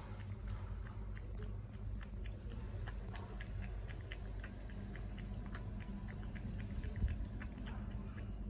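A calico cat's mouth working at the water and plants in a tub: small, irregular wet clicks, several a second, over a steady low rumble, with one louder knock about seven seconds in.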